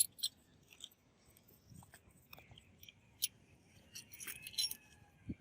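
Small metal parts being handled: scattered light clicks and clinks, a sharp one right at the start, another about three seconds in, and a busy cluster around four seconds, then a dull thump near the end.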